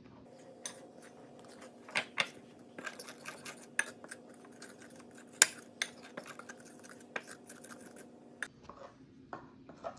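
A utensil clinking and scraping against a bowl in quick, irregular strokes as chocolate frosting (powdered sugar, cocoa, vanilla and milk) is stirred together.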